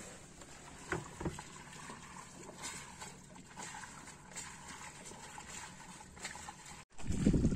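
Dufour 31 sailboat under way: faint water noise along the hull with scattered light clicks and creaks from the boat. Near the end, after a brief dropout, wind buffets the microphone with a louder low rumble.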